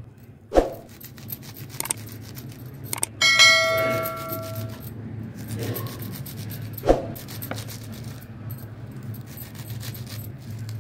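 Kitchen knife chopping spinach leaves on a wooden cutting board, a quick run of light taps. About three seconds in, a single metallic clang rings with a clear pitch for over a second, and two heavy thumps land about half a second in and near seven seconds.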